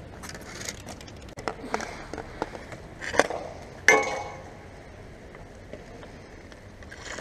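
Dek hockey stick hitting a plastic ball on the plastic sport-tile rink: scattered sharp clacks, the loudest about three and four seconds in, the second of these with a brief ring.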